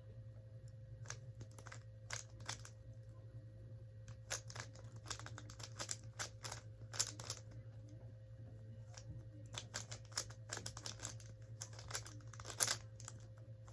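Rubik's cube being turned quickly by hand: irregular runs of plastic clicks and clacks as the layers snap round, over a faint steady hum.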